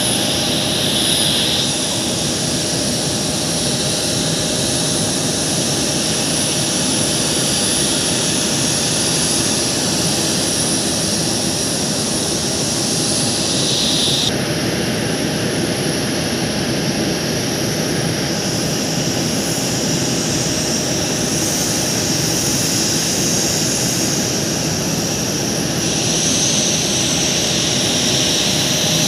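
Steady jet-turbine whine over a continuous rushing noise, with several high steady tones that change character about halfway through and again near the end.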